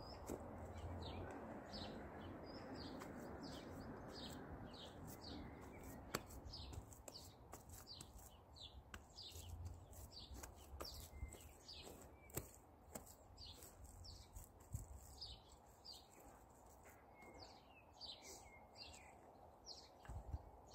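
Quiet birdsong: a bird repeating short, high chirps over and over, with a few soft thuds of boots treading wet soil.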